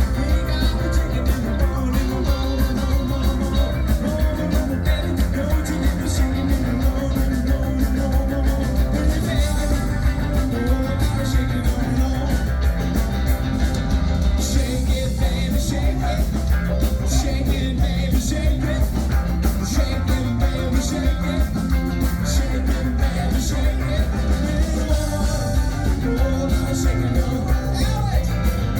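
Live band playing an Americana rock song led by guitar, with a heavy bass end and a steady beat.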